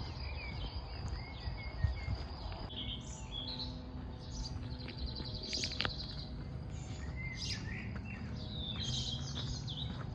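Small songbirds chirping and calling, with a rapid trill about halfway through, over a low steady rumble.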